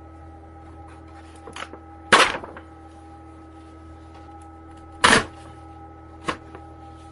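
Romeo RP25 braille embosser standing idle and offline with a steady electrical hum, broken by two loud clunks about three seconds apart and a couple of lighter knocks.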